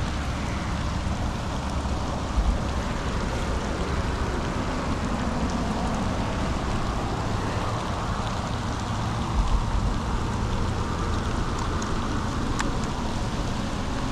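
Steady rain falling on the boat and the water, an even hiss. A couple of dull low thumps come about two seconds in and again past nine seconds, and a single sharp click near the end.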